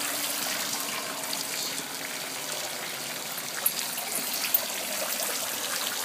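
Water falling in thin streams from an overhead fountain frame: a steady splashing trickle, with two short clicks near the middle.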